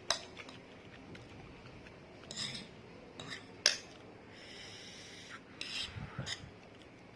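Cutlery clinking and scraping against a dish while eating instant noodles: a few sharp clinks and short scrapes.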